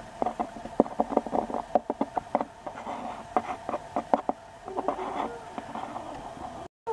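Sticky two-component polyester putty being mixed and spread with a plastic ruler, making irregular wet clicks and smacks over a faint steady hum.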